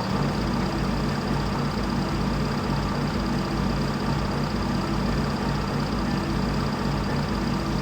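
Steady low engine-like running drone with a pulsing rumble, which drops off suddenly at the very end.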